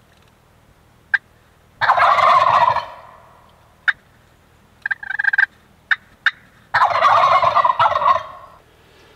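Wild turkey gobblers gobbling: two loud, rattling gobbles, about two seconds in and about seven seconds in, each lasting about a second, with several short, sharp call notes in between.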